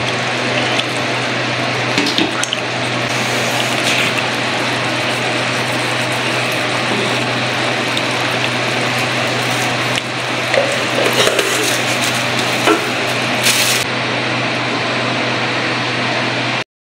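Eggs frying in masala in a nonstick pan: a steady sizzle with a few louder crackles, most of them in the second half, over a low steady hum.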